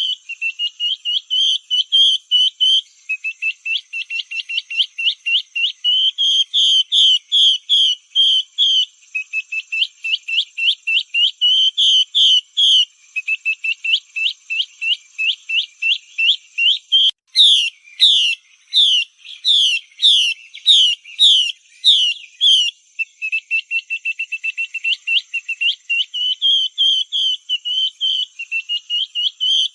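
Female Chinese hwamei calls used as a lure call for hwamei: runs of short whistled notes, several a second, in phrases lasting a few seconds each. About two-thirds of the way through comes a louder run of sharp, down-sweeping notes.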